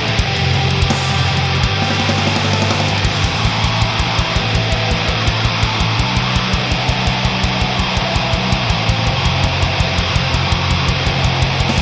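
Punk rock band playing live with no vocals: electric bass, guitar and drum kit, the drums settling into a fast, even beat about three seconds in.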